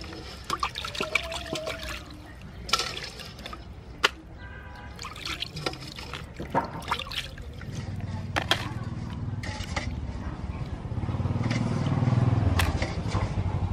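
Water splashing and dripping in a basin as raw crabs are handled and cleaned by hand, with small sharp clicks of shell. From about eight seconds in a low rumble comes up beneath it, loudest near the end.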